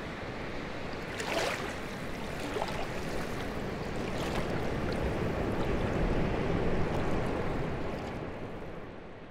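Sea water washing and sloshing at the surface: a steady rushing noise with a louder swish about a second and a half in, fading out near the end.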